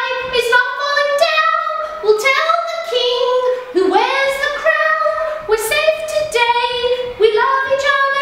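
A single high voice singing a simple tune unaccompanied, holding notes that step up and down.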